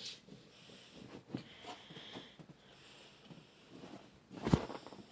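A pet sniffing in soft short puffs, with one louder snort or thump about four and a half seconds in.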